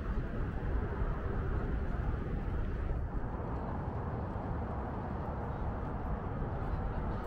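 Steady low wind rumble buffeting the microphone while riding a Onewheel GT electric board.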